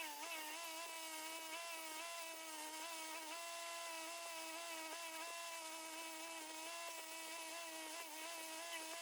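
Small electric motor running with a steady high-pitched hum, its pitch wavering slightly now and then.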